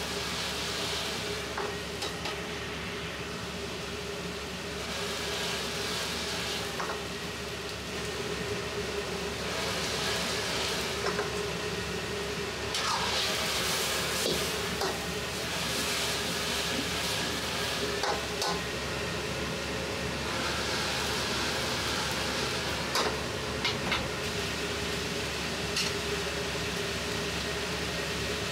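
Noodles frying in oil in a wok, shallow-fried into a crisp noodle cake: a steady sizzle that swells every few seconds as the wok is swirled. Now and then the ladle clinks against the wok, over a steady drone.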